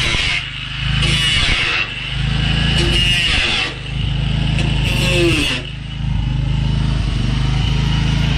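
Cut-off wheel on a grinder slicing through steel door sheet metal along a curve, in three long passes of about a second and a half each with short breaks between. A steady low hum runs underneath.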